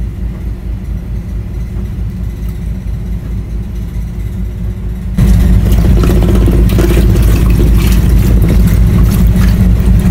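A boat engine running with a steady low hum, under water pouring from a hose into a tub. About five seconds in it becomes suddenly louder, with splashing as a hand handles a remora in the tub.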